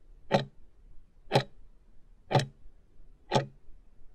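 Countdown timer ticking sound effect: four sharp ticks, one a second, as the timer runs out to zero.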